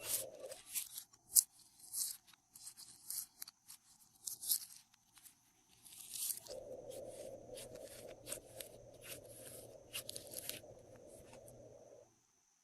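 Glossy slime being squished and stretched, giving off irregular sticky crackles and clicks. The sound stops abruptly near the end.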